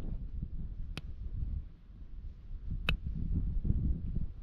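Hoof nippers clipping through an overgrown horse's hoof wall: two sharp snaps about two seconds apart, over low rustling and handling noise.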